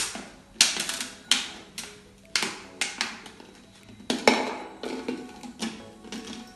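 Thin plastic water bottle crackling and snapping in sharp, irregular clicks, one or two a second, as a stencil knife cuts around its neck and the top is worked loose.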